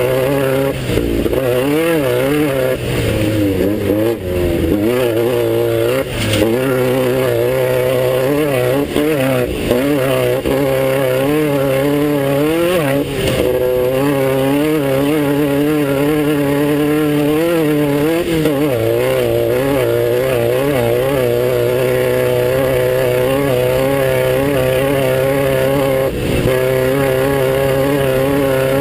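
Class 9 off-road race car's engine running hard at racing speed, its revs constantly rising and falling as the throttle is worked. A few sharp knocks come through, about 6, 13 and 26 seconds in.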